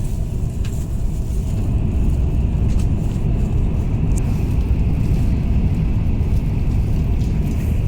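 Passenger train running, a loud steady low rumble heard from inside the carriage, with a faint steady high tone and a few light clicks.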